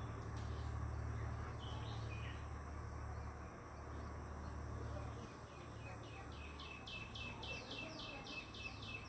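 Outdoor ambience: a low steady rumble fades out a little past halfway. From about two-thirds of the way in, a bird gives a quick, even run of short high chirps, about three a second.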